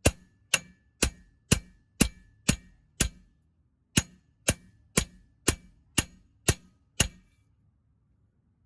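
Hammer blows on a steel ball joint separator, sharp ringing metal clangs about twice a second, with a short break after about three seconds, stopping about seven seconds in: driving the upper control arm's ball joint out of the steering knuckle.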